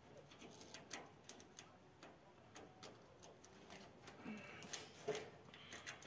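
Faint, scattered clicks and light taps from small metal parts of a wire rabbit cage's door latch being handled and fitted, a few slightly louder ones near the end.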